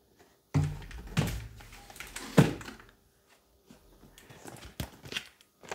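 Cardboard boxes and foam packing being handled: a graphics card's retail box pulled out of its cardboard shipping carton, with rustling, scraping and a few thunks, the loudest about two and a half seconds in.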